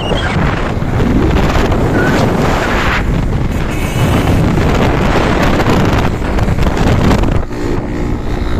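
Heavy wind buffeting the microphone of a moving bike, with a steady low rumble of road and vehicle noise beneath, easing a little near the end.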